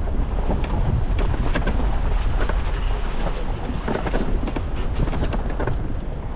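A 4x4 rolling down a loose gravel track: tyres crunching and popping over stones, many short ticks and clicks over a steady low rumble.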